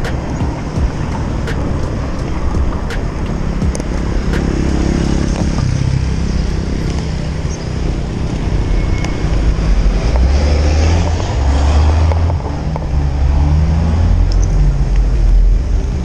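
Street traffic and wind rumbling on the microphone of a bicycle-mounted camera while riding along a city avenue, the low rumble growing stronger in the second half. A few sharp clicks or rattles in the first few seconds.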